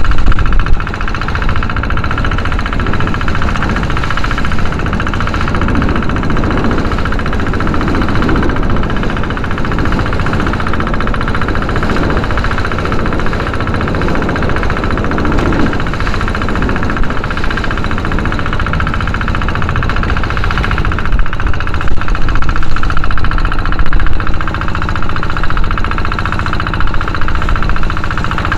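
Engine of a small outrigger fishing boat running steadily under way, with wind and the hiss and splash of spray as the hull cuts through choppy water. It gets somewhat louder after the middle.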